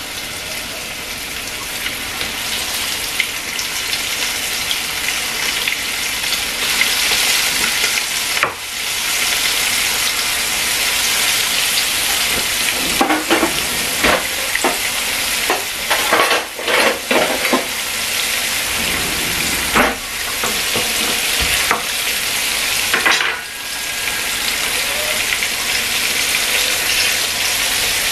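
Flour-dredged hake fillets sizzling in hot oil in a frying pan as they are seared; the sizzle swells over the first few seconds as more fillets go in. A few short knocks and clatters of utensils against the pan come in the middle.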